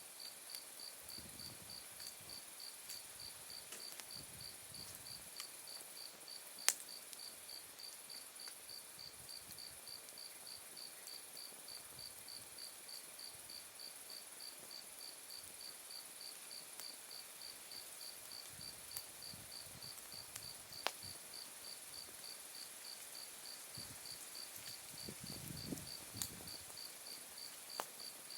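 Autumn night insects calling: one insect chirping in an even, steady rhythm over a continuous high trill. A wood campfire pops now and then with sharp crackles, the loudest about seven seconds in, and the burning wood gives a soft low rustle near the start and near the end.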